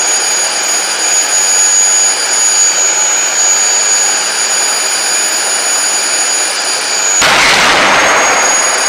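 Homemade turbojet engine running with a steady high-pitched whine over a rushing noise. About seven seconds in it suddenly grows louder and fuller, with a low rumble added.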